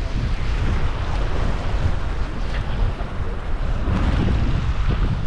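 Wind buffeting the microphone in a heavy, uneven rumble, over a steady wash of ocean surf.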